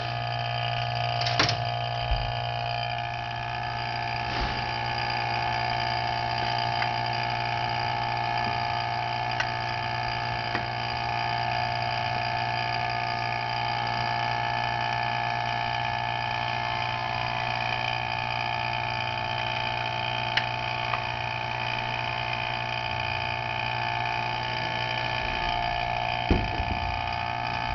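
Vacuum pump running steadily with a constant hum, pulling vacuum on a transmission valve body's governor port to check that it seals. A few light knocks, near the start and near the end.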